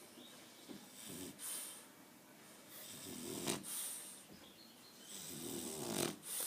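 French bulldog snoring: three slow snoring breaths about two and a half seconds apart, the last two louder.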